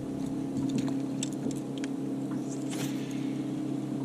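Electric trolling motor humming steadily on a bass boat, a steady low tone, with scattered light clicks and a brief hiss about three seconds in.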